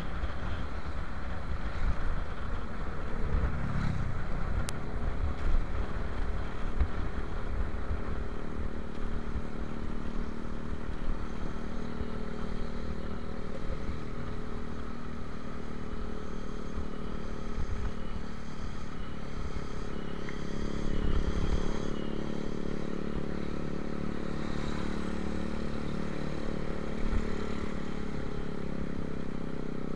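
Motorcycle engine running steadily on the move, its note shifting a little with the throttle, over a low rumble of wind buffeting the microphone.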